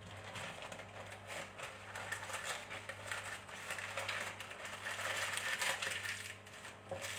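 Hands crushing and working food on a board, a dense run of soft crackles and rustles that grows busier toward the middle, over a steady low hum.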